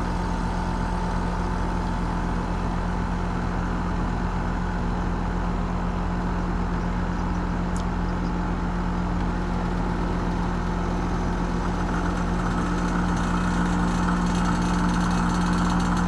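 R-410A heat pump outdoor unit running in heating mode: a steady machine hum with a constant tone, growing slightly louder near the end. The system is starving, with suction pressure collapsing because of a failed TXV, which the technician traces to its power head.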